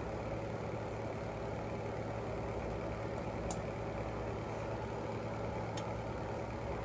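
Steady low background hum with two faint, short clicks, one a little past the middle and one near the end.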